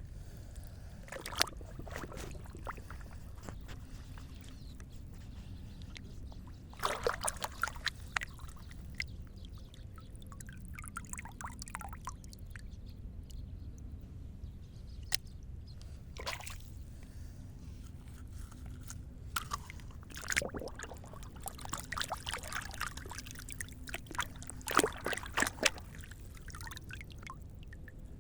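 Water sloshing and trickling in short spells, with scattered clicks, over a steady low hum.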